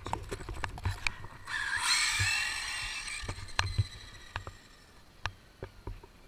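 Brushless electric motor and gear drive of a 1/7-scale Arrma Limitless RC car whining as it speeds up, rising in pitch about a second and a half in and fading out after about two seconds. Scattered clicks and knocks as it runs over the pavement.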